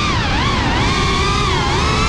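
GEPRC CineLog35 FPV quadcopter's brushless motors and propellers whining, the pitch dipping and climbing back twice as the throttle changes, over a rush of wind.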